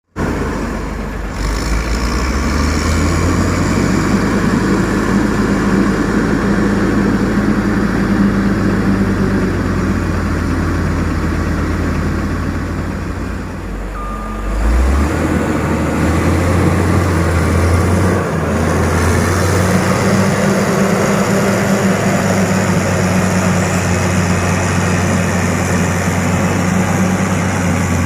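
Heavy diesel road-construction machinery running steadily, with its low engine note shifting about halfway through.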